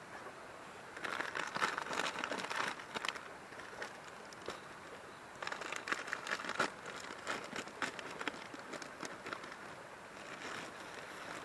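Irregular rustling and crinkling in two bursts, the first about a second in and the second around five and a half seconds in, with scattered ticks after them, over a steady background hiss.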